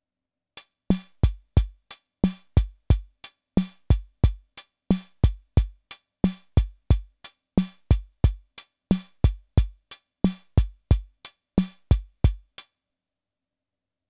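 Analog drum modules in a modular synth, triggered by an Arduino gate sequencer, playing a looping drum-machine pattern. Low kick drums, a mid-pitched drum hit once per cycle and sharp clicky hits repeat about every 1.3 seconds. The pattern starts about half a second in and cuts off suddenly near the end.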